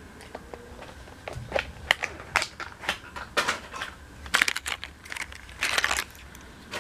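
Plastic lure packaging being handled and opened: a run of sharp clicks and short bursts of crinkling and crackling.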